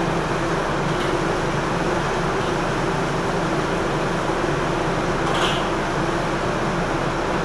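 Steady roar of a commercial kitchen's exhaust ventilation fan, with a steady low hum running under it. A brief, sharper sound cuts through about five and a half seconds in.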